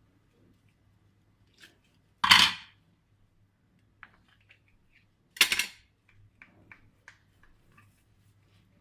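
Kitchen handling noises while hamburger patties are stacked on a tray: two short, loud knocks about three seconds apart, then a run of faint light clicks.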